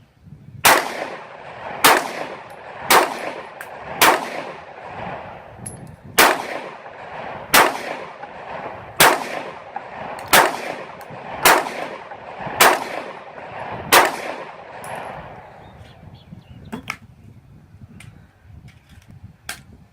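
Glock G26 9mm pistol firing eleven shots in slow, steady succession, about one every second and a bit, with a short pause after the fourth. A few much fainter sharp cracks follow near the end.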